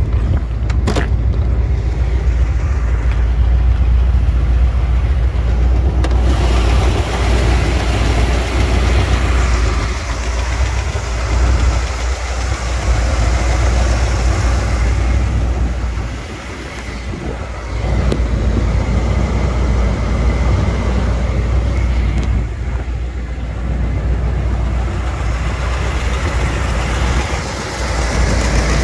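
Corvette's carbureted Chevrolet small-block V8 running at a steady idle, with one sharp click about a second in.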